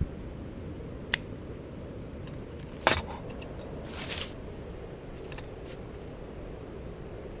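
MSR PocketRocket canister stove burner running with a steady low roar while water heats. A sharp click about a second in, a louder one near the three-second mark, and a brief rustle around four seconds in.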